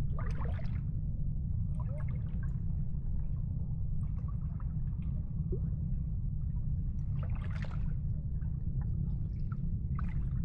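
Water lapping and splashing, with gurgling splashes at the start and again about seven to eight seconds in, over a steady low rumble.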